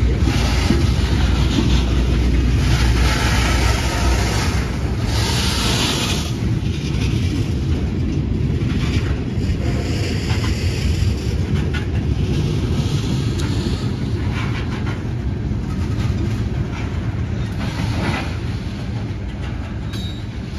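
Freight train of ethanol tank cars rolling past: a steady rumble with the wheels clicking over the rail joints. It slowly fades toward the end as the last car moves away.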